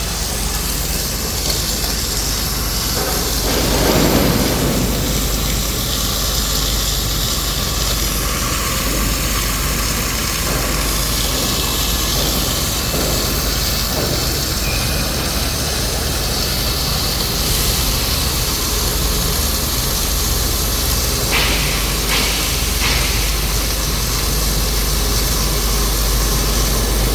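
Steady electrical hum and hiss of a gantry double-wire submerged arc welding machine running, with a louder rush about four seconds in and a few short clicks near the end.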